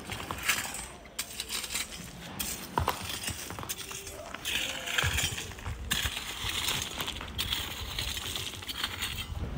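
Irregular sharp clinks and knocks of stones and a metal digging tool working sand and gravel among rocks, with a longer gritty scraping sound from about halfway through.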